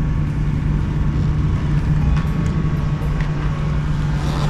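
Steady low machine hum, unchanging in pitch and level, with a few faint ticks over it.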